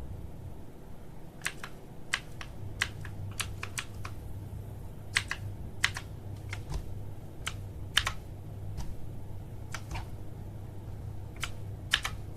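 Keys on a mechanical keyboard being pressed, giving sharp separate clicks at irregular spacing, some in quick runs of two or three.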